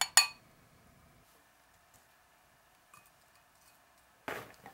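A metal spoon clinks twice against a glass cup right at the start, the second clink ringing briefly. About four seconds in comes a short scraping clatter as frozen berries are spooned into the glass.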